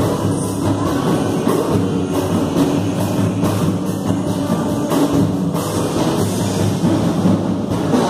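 Live Christian worship band playing a song, with acoustic and electric guitars and a large strap-hung hand drum keeping the beat.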